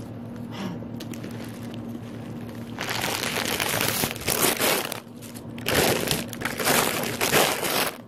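Plastic bag and packaging rustling and crinkling as items are handled. It starts about three seconds in and comes in loud stretches with short pauses.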